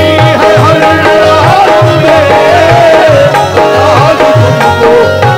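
Qawwali music: a wavering melody on keyboard and harmonium over a steady hand-drum beat.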